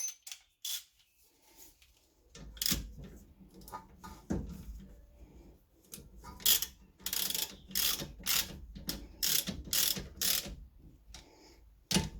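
Socket ratchet clicking in repeated short strokes, tightening a 12 mm rear brake caliper bolt. The strokes start about two seconds in, after a short pause.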